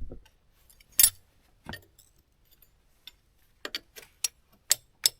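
Hand tools clinking against the steel hydraulic hose fittings on a harvester head's rotator as the hoses are loosened: scattered sharp metallic clicks, the loudest about a second in, then a quick run of clicks near the end.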